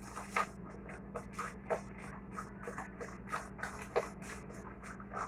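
Cake batter being beaten by hand in a bowl: a utensil scraping and knocking against the bowl in quick strokes, about three a second.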